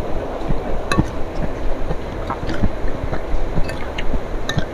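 Metal fork and spoon clinking a few times against a ceramic plate as they cut into a giant meatball in sauce, over a steady low rumble.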